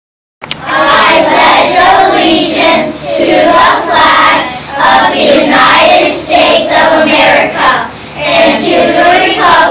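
A class of young children reciting the Pledge of Allegiance together in chorus, phrase by phrase with short pauses, starting about half a second in.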